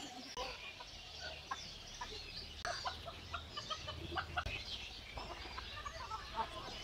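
Chickens clucking, with small birds chirping, as a faint background.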